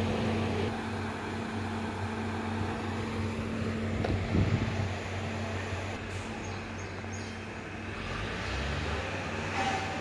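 Diesel engine of a road roller running with a steady hum, and a brief knock about four seconds in.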